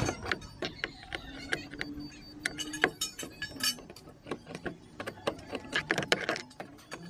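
Screwdriver turning a screw in the plastic pull-handle recess of a car's interior door panel, with irregular clicks and small knocks of the tip and screw against the plastic trim.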